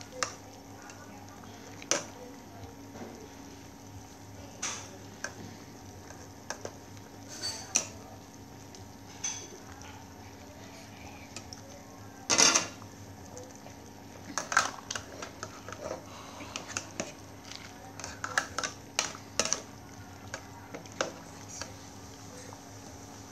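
A metal ladle clinking against the side of a metal soup pot now and then as it stirs the simmering broth. The loudest clink comes about halfway through, and a quick run of clinks follows later.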